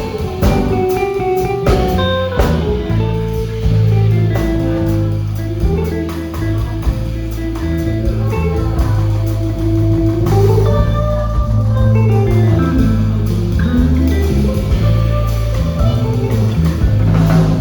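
Jazz band playing: a guitar carries a sliding, bending melody over bass and drum kit.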